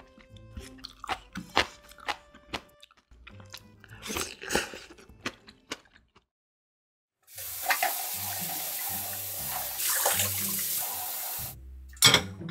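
Chewing of kimchi and noodles, then after a short gap water running steadily for about four seconds, and near the end a sharp metal clatter of a steamer insert being handled on a pot. Soft background music plays under it.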